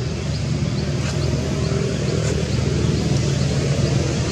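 A steady low motor hum under outdoor background noise, with faint high chirps repeating a few times a second.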